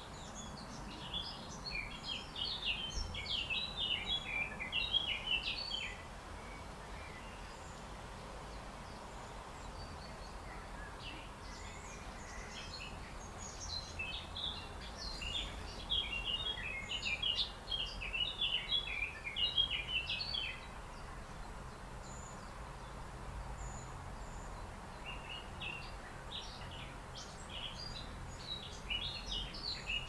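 Small songbirds chirping and twittering rapidly in three spells of several seconds each, over a steady low rumble.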